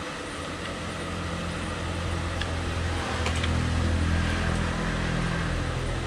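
A low engine hum from a motor vehicle, growing louder to a peak about four seconds in and then easing off. A few light clinks of cutlery on plates are heard over it.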